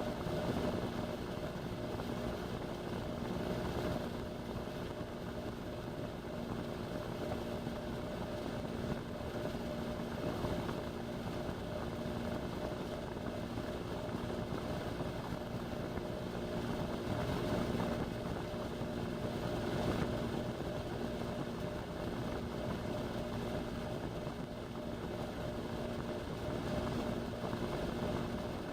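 Indesit washing machine running steadily, heard through its door glass: an even mechanical noise of the drum and motor with a steady hum, swelling and easing slightly now and then.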